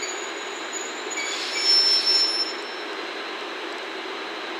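Steel wheels of a slow-moving locomotive-hauled train squealing against the rails: a thin, high squeal with several pitches rises about a second in and dies away about halfway through, over a steady hum.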